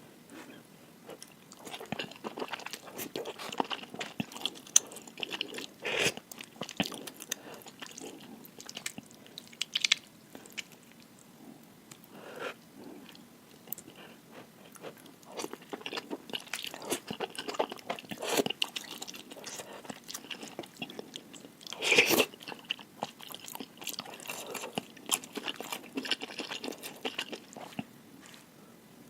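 A person eating noodles close to the microphone: wet chewing and mouth clicks, with louder bursts about six seconds in and, loudest, about twenty-two seconds in.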